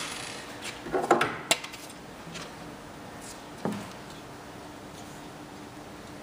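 Metal clinking and clattering as a steel file-cabinet locking bar and small hand tools are handled: a quick cluster of clanks about a second in, then a single knock shortly before four seconds.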